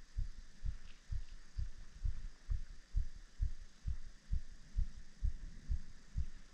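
Regular low thumps, about two a second, with a few faint clicks above them.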